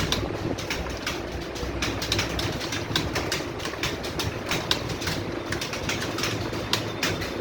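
Several computer keyboards clattering at once as people type fast, a dense irregular run of key clicks over a steady low hum.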